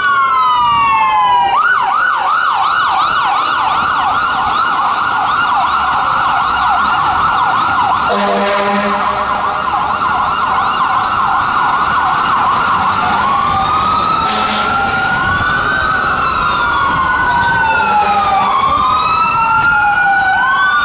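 Sirens of Spartan Gladiator fire trucks responding code 3. A wail falls away, then a fast yelp runs for about ten seconds with a horn blast of about a second near the middle. The siren then changes to a slow rising and falling wail, and a second siren overlaps it near the end.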